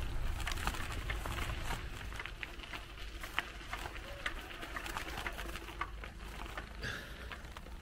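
Bicycle rolling over a rough dirt track, its tyres crunching on grit with scattered small clicks and rattles, over a steady low wind rumble on the microphone.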